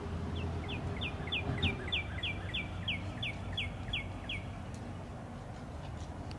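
A songbird singing a fast series of about a dozen short downslurred whistled notes, about three a second, stopping about two seconds before the end, over a steady low outdoor rumble.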